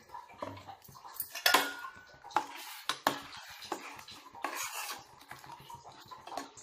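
Steel ladle stirring curry in a stainless steel pot, scraping and clinking irregularly against the pot's sides, with one louder ringing knock about one and a half seconds in.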